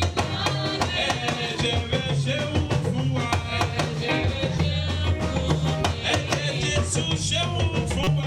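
Live band music with drums, bass and guitar at a steady beat, with singing over it.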